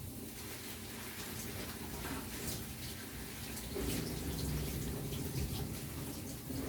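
Kitchen tap running water into a sink, growing louder about four seconds in.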